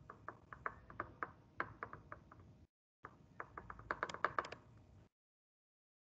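Quick, irregular clicks and taps of keys being pressed, several a second. They come in two runs, broken where the audio gates off to silence.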